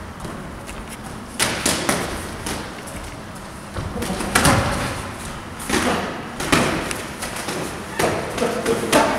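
Gloved punches landing during boxing sparring, irregular sharp smacks and thuds: a pair about a second and a half in, a quick flurry around four seconds, then more scattered hits toward the end.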